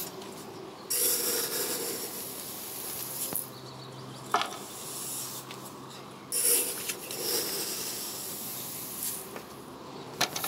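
Crushed malt pours in a hissing rush from a stainless scoop into the mash water of a brewing kettle, mashing in. There are two pours of a few seconds each, and a sharp metal knock of the scoop about four seconds in and again near the end.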